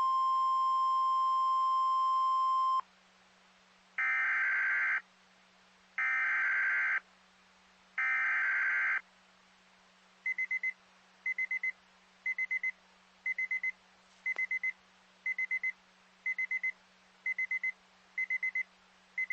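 Emergency weather alert tones: a steady single alarm tone that cuts off suddenly about three seconds in, then three one-second bursts of data-like noise about a second apart, then short triple beeps repeating about once a second.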